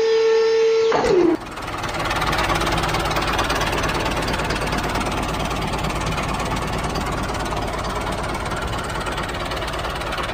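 A held tone that slides down in pitch and stops about a second in, then a tractor engine running steadily with a rough, even rumble.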